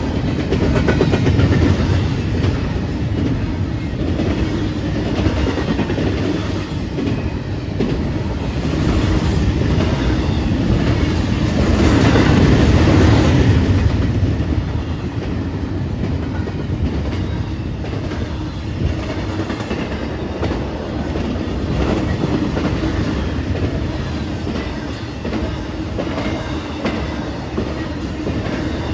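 Train cars rolling past on the rails, wheels clacking over the joints in a steady run of rail noise that grows louder for a couple of seconds about halfway through.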